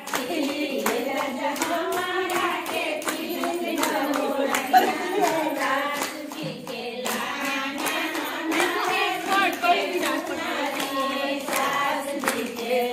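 Women singing a traditional wedding song with hand-clapping throughout.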